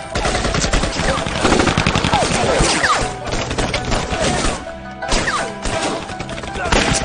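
Rapid gunfire, many shots in quick succession, with voices crying out over it.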